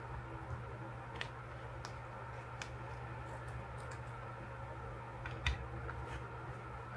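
Paper stickers being handled and pressed onto a journal page: a few small clicks and taps, the loudest with a soft thump about five and a half seconds in, over a steady low hum.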